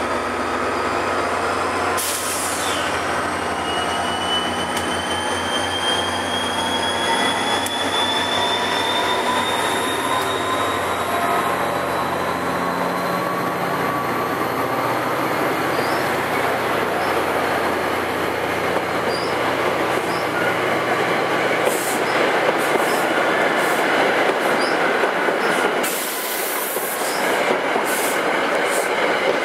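NJ Transit GP40PH-2A diesel locomotive humming as it passes, followed by Comet V passenger coaches rumbling along the rails with a thin wheel squeal that slowly rises in pitch. A string of clicks comes near the end as the coaches roll by.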